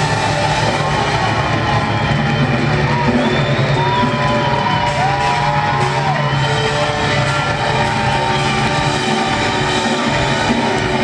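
Rock band playing live, loud and steady.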